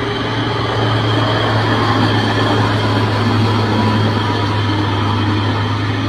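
Heavy diesel engines of a timber truck and a crawler bulldozer running hard on a steep muddy slope: a steady low drone, a little louder after about a second.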